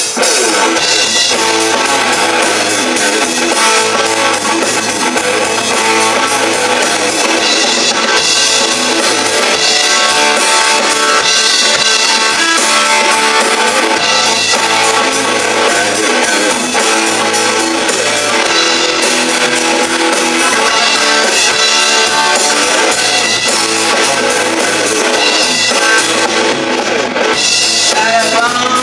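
Live rock band playing an instrumental passage: amplified electric guitar, electric bass and drum kit with a steady beat.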